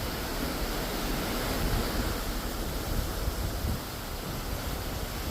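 Steady wash of the open sea heard from a cruise ship's deck, with wind noise on the microphone.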